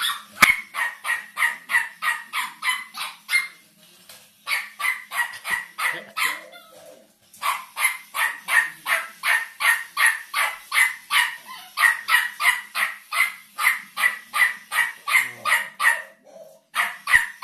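Toy robot dog giving electronic barks: short, evenly spaced yaps, about three a second, in long runs broken by a few brief pauses.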